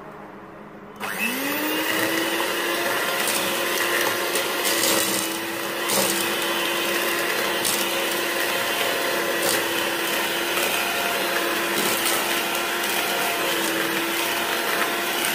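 Electric hand mixer switched on about a second in, its motor whining up to speed and then running steadily as its beaters cream butter and sugar in a stainless steel bowl, with occasional sharp clicks.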